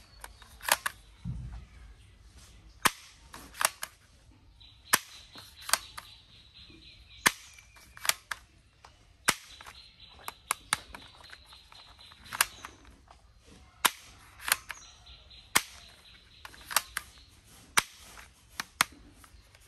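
Plastic toy revolver clicking as its trigger and hammer are worked: about twenty sharp single clicks, roughly one a second, some in quick pairs. A faint steady high tone comes and goes behind them.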